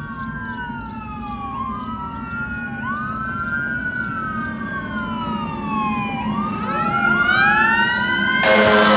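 Fire engine siren wailing in layered tones that slide down and sweep back up again and again, growing louder as the truck approaches. About eight and a half seconds in, the engine's air horn starts sounding over it.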